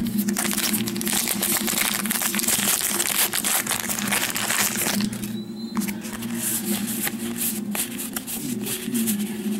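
Plastic wrapper of a Topps Gypsy Queen baseball card pack crinkling and crackling as it is handled, densely for about the first five seconds, then in sparser clicks.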